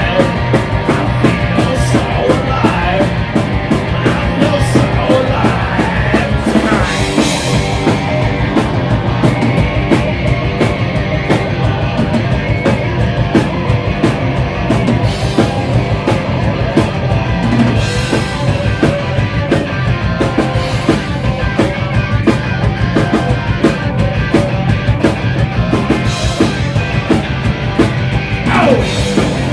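Live rock band playing loud and fast with a driving drum beat and guitars, a punk-rock instrumental passage with little or no singing.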